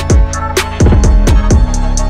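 Background music with a steady beat: regular hi-hat ticks over deep bass-drum hits that drop sharply in pitch, with held instrument tones underneath.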